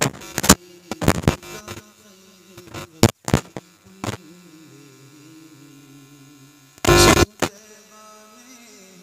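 Steady electrical mains hum from a sound system, broken by several loud sudden crackles. The biggest crackle comes about seven seconds in.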